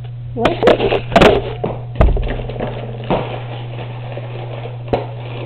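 A few sharp taps and knocks over a steady low hum. The loudest knock comes about two seconds in, with smaller ones near three and five seconds.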